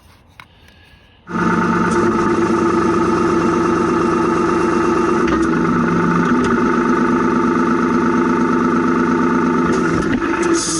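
Ford 4500 backhoe's engine idling steadily. It comes in abruptly about a second in, after a quieter start.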